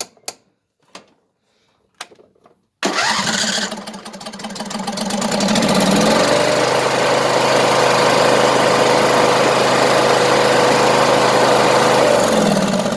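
A few faint clicks, then the riding lawn mower's 21-horsepower engine starts about three seconds in, rises in pitch to a steady high-revving run, and drops back down near the end.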